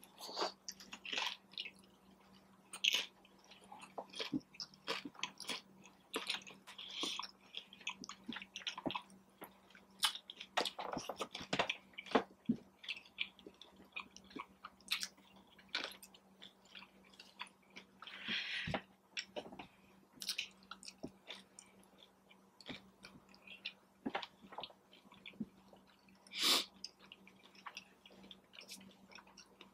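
Close-up chewing of a crunchy hard taco shell, with irregular crisp crunches and wet mouth sounds. The lime-flavoured shell is one the eater finds a little stale, with some chew to it.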